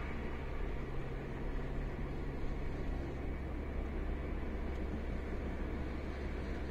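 Car engine and tyre noise heard from inside the cabin while driving, a steady low hum with no sudden changes.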